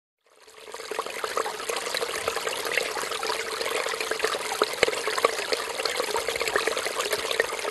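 Water running and splashing steadily, with many small drips and splashes. It fades in over the first second.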